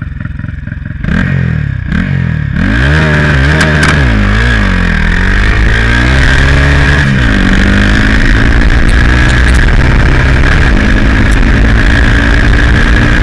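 Turbocharged Honda Titan 160 single-cylinder motorcycle engine revved in several quick blips, then held at steady high revs, with a steady high whine over the engine note.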